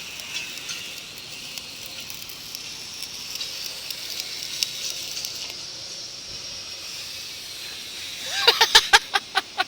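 Stick-welding arc burning a 7018 rod, run without an electrode holder: a steady crackling hiss that fades out about six seconds in. Near the end comes a short, loud burst of a person's voice.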